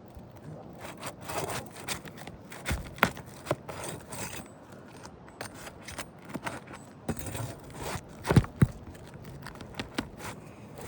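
Asphalt roof shingles being worked loose by hand: scraping, rubbing and crackling as the sealant bond is broken and the shingle is lifted, with a few sharp snaps about three seconds in and again about eight and a half seconds in.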